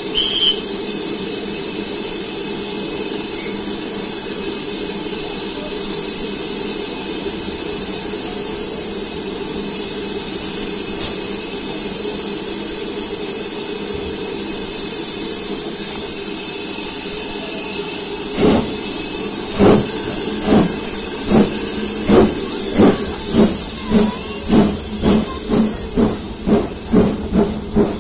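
Steam locomotive standing with a steady hiss of steam, then pulling away about two-thirds of the way through. Its exhaust beats start slow and quicken to a little over two a second.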